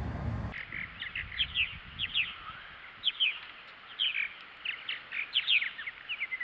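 Small songbirds chirping: many short, quick notes that slide downward, coming in clusters, several birds overlapping. A low rumble cuts off sharply about half a second in.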